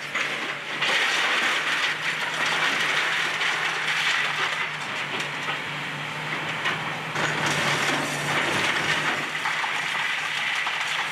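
Komatsu PC390 excavator with a demolition grapple tearing into a brick wall: a steady diesel engine drone under continuous crunching, scraping and clattering of breaking brick and falling debris.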